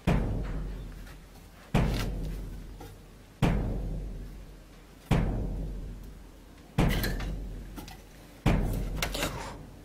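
A drum struck slowly and evenly, one deep beat about every 1.7 seconds, each ringing out and fading before the next; six beats in all.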